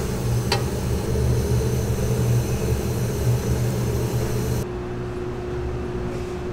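Steady roar of a restaurant kitchen's wok range and extractor, with a light clink about half a second in. About four and a half seconds in it cuts suddenly to a quieter steady room hum with a single held tone.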